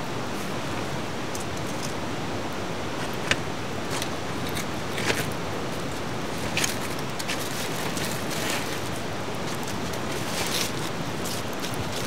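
Wood fire burning in a folding fire stand: a steady hiss with scattered sharp crackles and pops.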